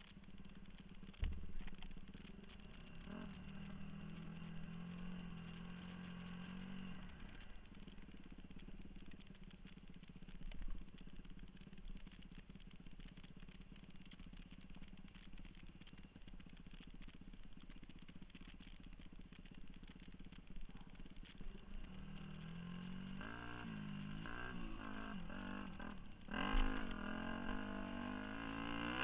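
2002 Yamaha YZ250F's single-cylinder four-stroke engine running under way on a dirt trail, held at a steady pitch early on, then revving up and down repeatedly over the last several seconds as the throttle is worked. A sharp thump comes about a second in and another near the end.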